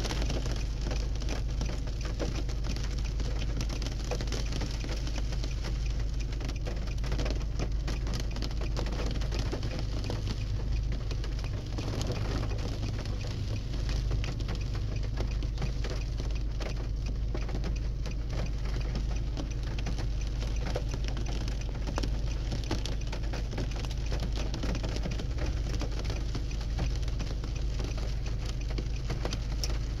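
Steady rain falling, many small drop ticks over an even hiss.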